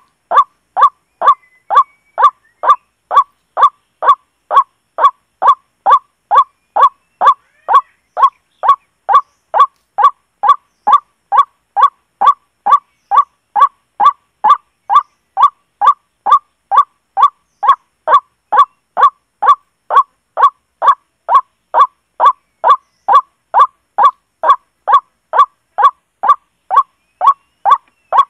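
Recorded white-breasted waterhen call played on a loop through a small portable speaker as a lure: one short call repeated at an even pace, about twice a second, each call the same as the last.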